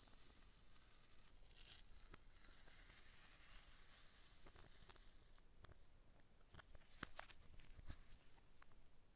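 Faint tearing and rustling of packaging being handled, followed by a scattering of light clicks and taps.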